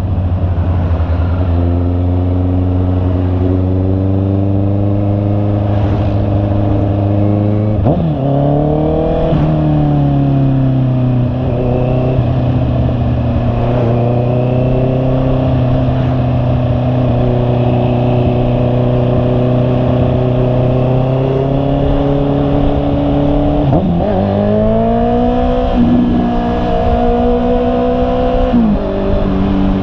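Honda CB650R's inline-four engine running, its pitch holding steady for long stretches and sweeping up and down as the revs change, about eight to ten seconds in and again from about twenty-four seconds on.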